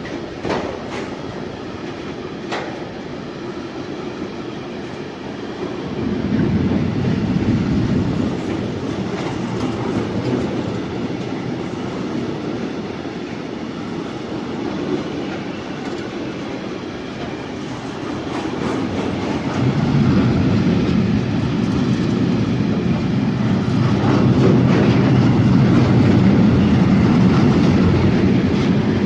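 Freight train of tank wagons rolling past close by: a steady rumble of wheels on the rails, with a few sharp clicks near the start. It swells about six seconds in and again from about twenty seconds on.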